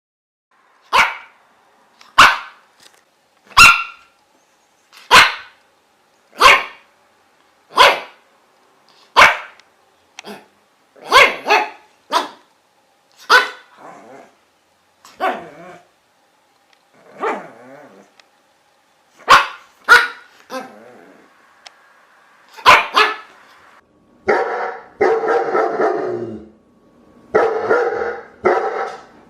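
Dog barking: loud single barks about every second and a half, then sparser, and near the end a dense run of rapid barking.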